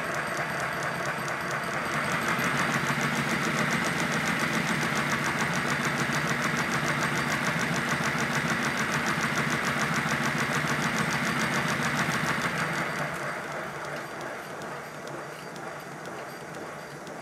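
A 5-inch gauge live-steam model locomotive running on the bench: rapid, even steam exhaust beats over a loud hiss. The sound grows louder about two seconds in and falls away near the end.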